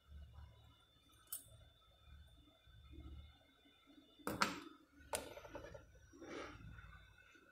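Small metallic clicks as steel tweezers set a phone motherboard's metal shield cover down onto the circuit board: a faint click early, then two sharper clicks about a second apart and a softer one near the end.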